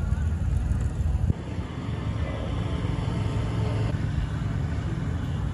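Low, steady rumble of a motor vehicle engine running nearby, dropping in level abruptly about a second in and then continuing evenly.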